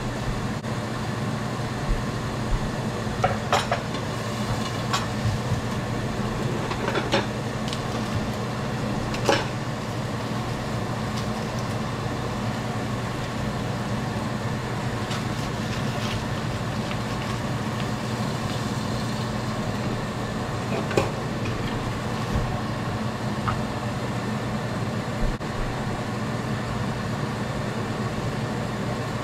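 A steady low mechanical hum, with a few scattered light clicks and knocks, most of them in the first third.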